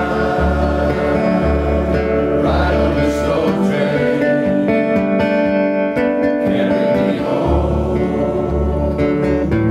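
Acoustic guitar played with a steady bass pulse under a group singing a chorus together, the audience joining in.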